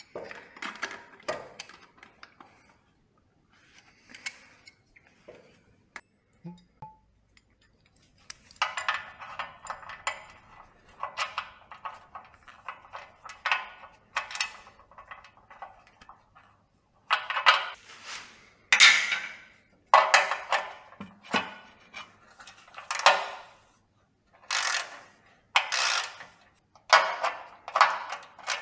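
Intermittent clinks, rattles and scrapes of metal tools and engine parts being handled, in short separate bursts that come more often in the second half.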